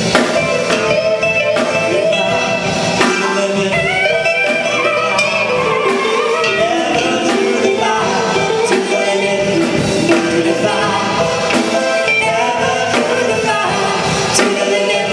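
A live band playing a pop ballad without sung words, with a steady drum beat under keyboard and other instruments.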